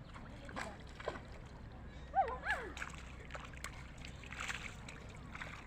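Irregular water splashing and sloshing as a fishing net full of fish is worked in a pond, with a brief vocal exclamation about two seconds in.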